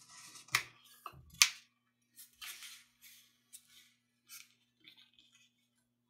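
Sheet of paper being folded and creased by hand: a string of short, crisp rustles and rubs, the sharpest about one and a half seconds in.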